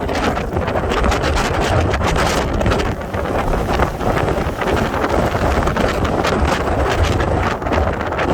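Strong wind buffeting the microphone in a heavy, continuous rumble, over the rushing noise of a stormy sea's surf.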